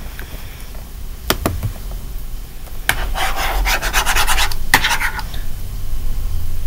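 Rubbing and scratching noises with a few sharp clicks, then a dense stretch of scratchy rapid clicking about three to five seconds in, over a low hum.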